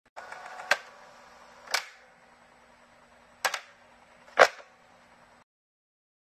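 Four sharp clicks or knocks about a second apart, the third one doubled and the last the loudest, over faint room tone with a low steady hum.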